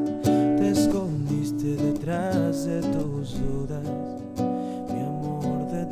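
A man singing a slow song with long held notes, accompanying himself on acoustic guitar.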